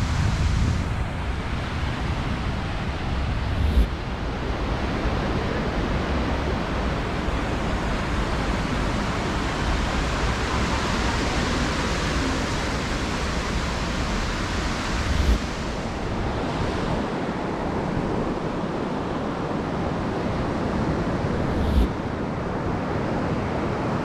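Steady rush of surf and wind, with three brief low thumps spread through it.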